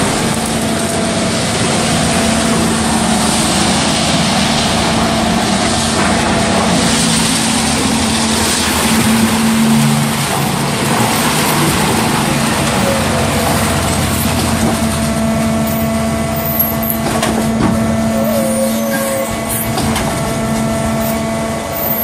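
Concrete mixer pump running steadily: a constant machine hum and drone with a dense hiss of working machinery as concrete pours from the turning mixing drum into the pump hopper.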